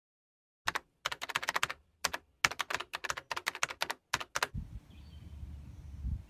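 Keyboard typing: a quick run of sharp keystroke clicks in several bursts. About four and a half seconds in it cuts to a faint outdoor background of low rumble with a few faint bird chirps.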